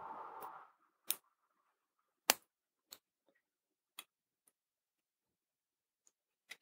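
Metal tweezers clicking against a paper tape strip of surface-mount resistors, prising one out of its pocket: a soft rustle at the start, then a few sparse, sharp little clicks, the loudest about two seconds in.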